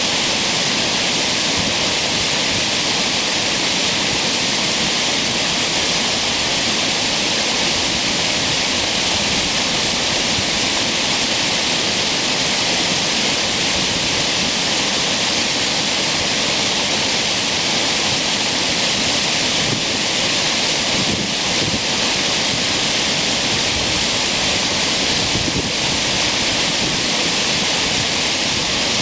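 Creek waterfall: a loud, steady roar of falling water that stays the same throughout.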